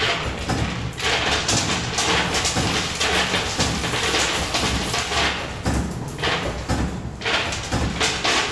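Steady, loud ambient din around a coin pusher machine in an arcade: a dense wash of machine noise and clatter, dipping briefly a few times.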